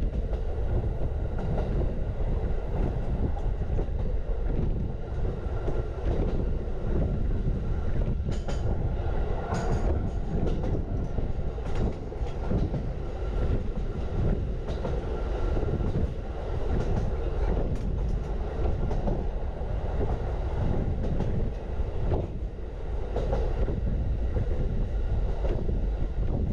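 Norokko sightseeing train running along the track: a steady rumble of wheels on the rails, with a few sharp clicks in the middle and again near the end.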